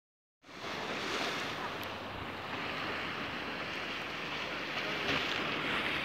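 Sea waves washing against a concrete sea wall: a steady rushing surf that starts about half a second in, swelling a little now and then.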